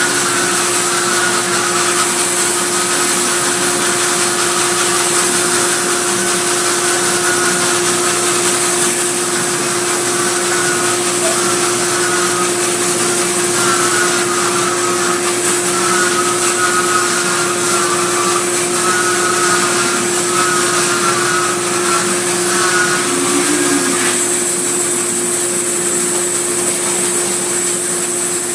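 Vertical sawmill driven by a 10 hp electric motor, running steadily with a constant hum and hiss. A wavering higher note rides over it and stops about 24 seconds in.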